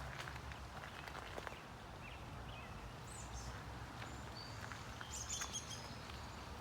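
Small birds chirping and singing in short high calls, clustered about three seconds in and again near the end, over a steady low background rumble.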